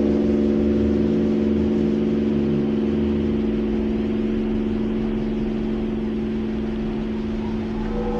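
Steady meditative drone: several low tones held together over a low rumbling hiss, presented as Earth's electromagnetic vibrations made audible and mixed with Zen sounds. A new, higher set of ringing tones enters near the end.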